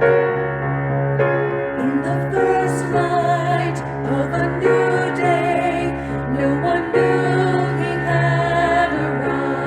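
A slow, gentle song with piano accompaniment holding low notes under it. About two seconds in, a melody line with vibrato comes in over the piano.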